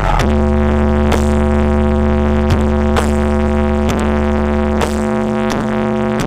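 Loud electronic dance music played through a large sound system: deep sustained bass and held synth chords, with a downward pitch slide at the start and a steady beat.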